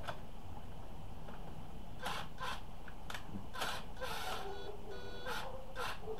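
Metal clicks and scrapes from a motorcycle fork spring compressor tool being worked loose from the fork, a string of separate knocks starting about two seconds in.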